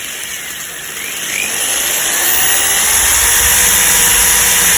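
Electric drill with a titanium metal bit drilling out a stainless steel rivet head; it grows louder over the first two seconds, then runs steadily under load.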